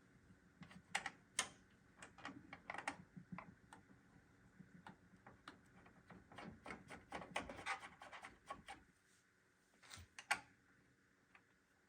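Faint, irregular clicks and light knocks of small hard parts being handled during PC assembly, with a quieter spell near the end broken by two sharper clicks.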